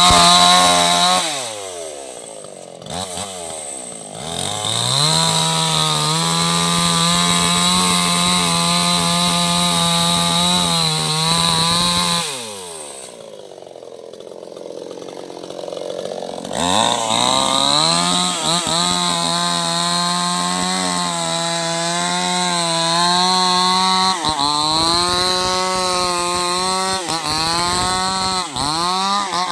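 Two-stroke chainsaw cutting a mango tree, running at high revs. Its revs fall right at the start, rise again a few seconds in, then drop back to idle for about four seconds in the middle before it revs up again, with a few brief dips near the end.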